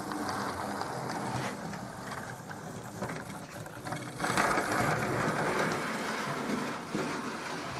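Hornby Railroad GWR County class 00 gauge model locomotive running slowly on track, its small electric motor and gears whirring steadily; it gets louder about four seconds in.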